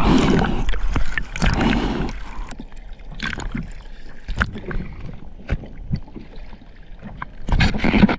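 Sea water splashing and sloshing close to the microphone in irregular bursts, loudest at first and again near the end.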